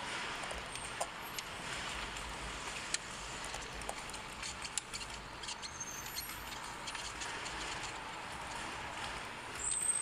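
Scattered small clicks and scrapes of a screwdriver working screws on the plastic centre air vent and console trim of a BMW F10, over a steady background hiss.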